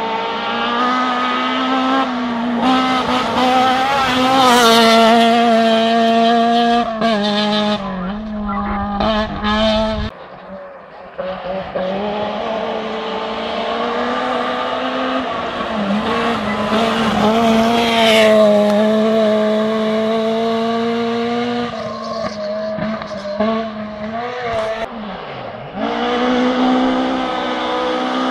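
Rally car engine on a gravel forest stage, heard from a distance as it comes up the road, its note rising and falling with throttle and gear changes. It drops back sharply about ten seconds in, then builds again.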